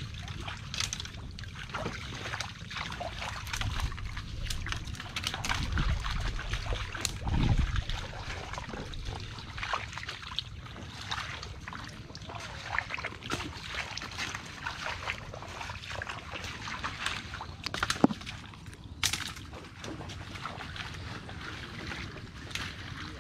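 Footsteps wading through shallow water and soft mud, with irregular sloshing and splashing and scattered sharp clicks.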